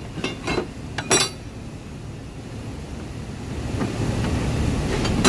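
Metal hand tools clinking and knocking in a steel toolbox drawer, a few sharp clinks in the first second or so. A low, steady rumble then builds up through the second half.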